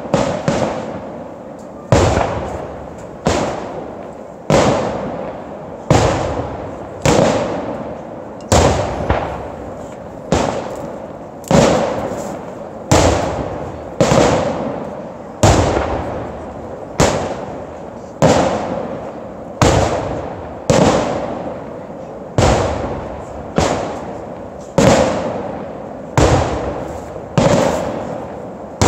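Aerial firework shells bursting in a steady sequence, a loud bang a little more than a second apart. Each bang is followed by a rumbling echo that dies away before the next.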